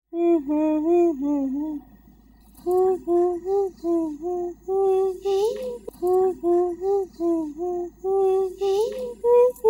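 A high voice singing a melody in short, even notes, with a brief pause about two seconds in.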